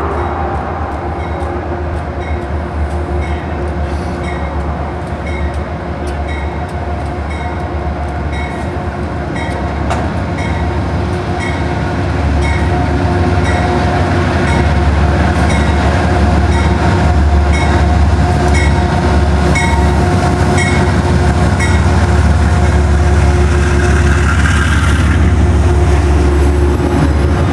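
Amtrak diesel-hauled passenger train running by: a steady heavy rumble with a steady engine tone, and the regular clicking of wheels over rail joints. It grows louder about halfway through as the train comes closer.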